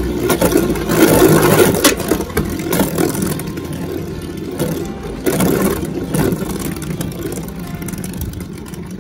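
Beyblade Burst top (Variant Lucifer on a Mobius driver) spinning and scraping across a plastic stadium floor as it circles the bowl, a rattling whir that gradually gets quieter as the top loses speed.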